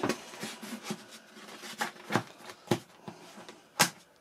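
Handling noise as a foam RC-plane wing is lifted out of its polystyrene packing tray: a string of light knocks and clicks with rubbing between, the sharpest knock near the end.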